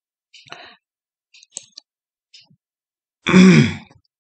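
Light clicks from a computer mouse and keyboard, a few scattered taps. About three seconds in comes a short, louder wordless vocal sound from a person, the loudest thing heard.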